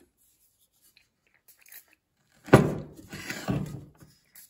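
Handling noise: a sharp knock about two and a half seconds in, followed by a second of crunching, rustling noise with another knock in the middle of it.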